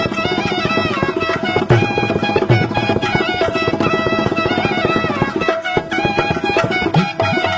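Instrumental music with rapid drumming under a winding melody.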